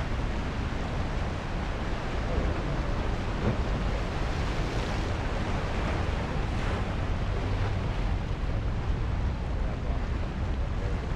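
Ocean surf breaking and washing over rocks at the foot of a sea cliff, with steady wind rumbling on the microphone. The surf hiss swells briefly about four to five seconds in.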